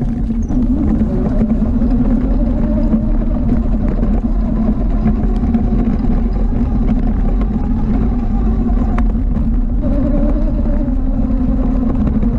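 ATV engine running steadily as the quad rides along the trail, its pitch wavering a little with the throttle.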